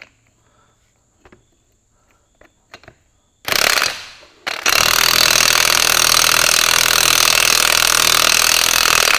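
Makita cordless impact wrench running a nut down a new wheel stud, drawing the splined stud into a tractor front hub. It gives a short burst about three and a half seconds in, then hammers rapidly for about four and a half seconds and stops just before the end. A few light clicks of parts being handled come before it.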